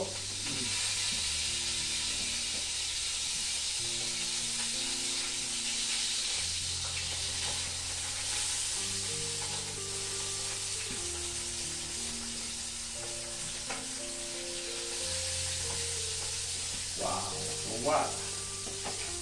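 Food frying in hot oil in a pan on a gas stove, a steady sizzle as it is stirred with a spoon. A few clinks of the spoon against the pan come near the end.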